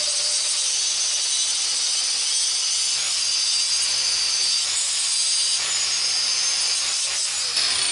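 Belt grinder grinding forge scale off a forged 5160 spring-steel knife blade: a steady high-pitched grinding hiss and whine, with a falling tone near the end.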